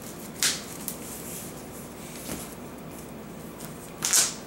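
Yu-Gi-Oh cards being shuffled and handled: two short brushing rustles, one about half a second in and a louder one near the end, with a few light clicks between.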